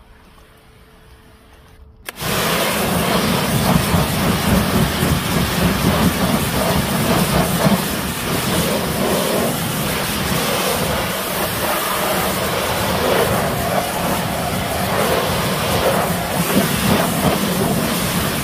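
Pressure washer running, its jet of water hissing against a car's alloy wheel and tyre; it starts suddenly about two seconds in and stays steady.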